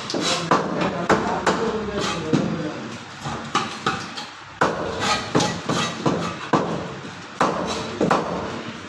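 A heavy cleaver chopping through rohu fish on a wooden cutting board, striking about twice a second with a short pause a little before the middle.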